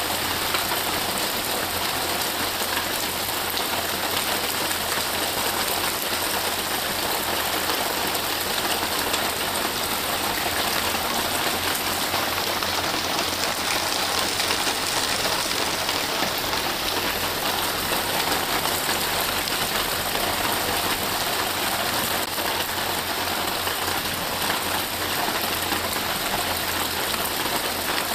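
Steady rain falling, an even hiss with no breaks, slightly brighter around the middle.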